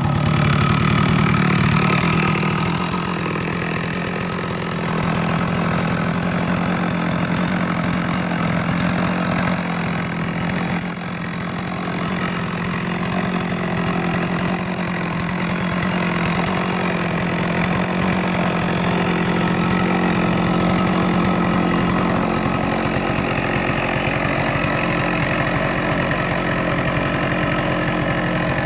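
Chainsaw engine running steadily at high speed as it drives a chainsaw mill through a large log, with the level dipping briefly a couple of times.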